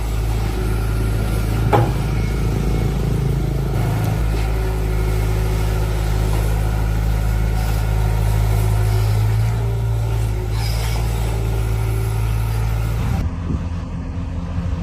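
Excavator's diesel engine running steadily at a constant pitch, with a single knock about two seconds in. The engine sound changes abruptly near the end.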